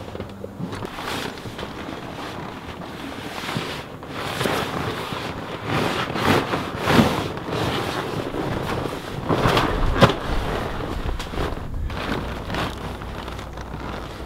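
Large nylon storage bags being hauled and handled, their fabric rustling and scraping in uneven swells, with one sharp knock about ten seconds in.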